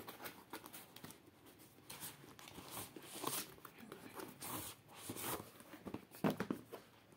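Cardboard mailer packaging being handled: scattered rustling and scraping as a boxed product is slid out of it, with a few short knocks.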